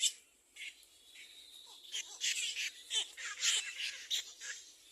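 Nestling birds begging for food with quick, high-pitched chirps, the calls crowding together most thickly through the middle.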